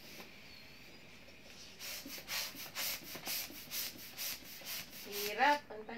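Red plastic hand balloon pump being worked to inflate a latex balloon: from about two seconds in, a run of quick hissing strokes of air, roughly three a second. A short rising squeaky sound comes near the end.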